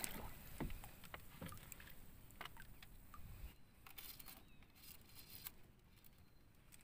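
Faint water splashing with scattered small clicks and knocks, growing quieter about three and a half seconds in.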